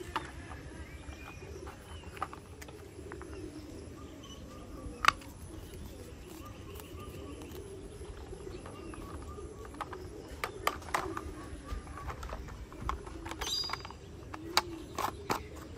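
Plastic toy parts clicking and snapping as the cement mixer truck is put together by hand: one sharp snap about five seconds in and a run of clicks near the end. Birds calling steadily in the background.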